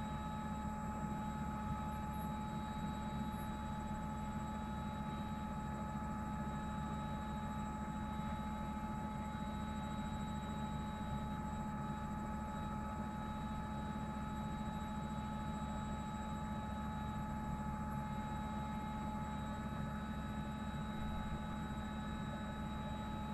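A steady hum with a few constant whining tones above it, unchanging throughout.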